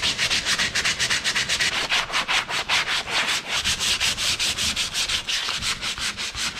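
80-grit sandpaper rubbed by hand back and forth over a plastic weld patch on a kayak hull, in rapid, even strokes, several a second, smoothing the weld down.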